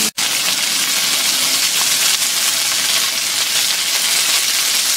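Chicken pieces browning in hot oil in a frying pan, a steady sizzle. It drops out for an instant just after the start.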